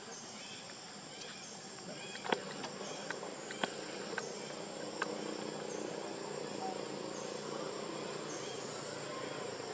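Insects, crickets or cicadas, shrilling steadily at a high pitch, with a chirp repeating every second or so. A few sharp clicks fall in the middle, the loudest about two seconds in.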